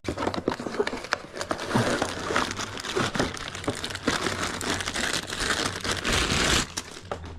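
Packaging being handled and unwrapped, a run of crinkling and crackling with many small rustles that grows louder toward the end.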